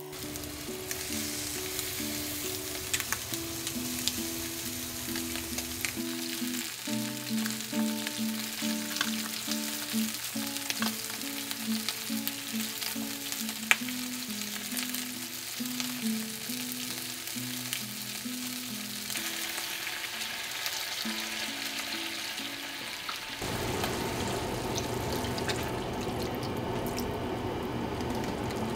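Chicken drumettes frying in a nonstick frying pan: a steady sizzle, with a few sharp clicks of metal tongs turning the pieces about halfway through. Soft melodic background music plays over it and stops about three-quarters of the way in, after which the sizzling is louder.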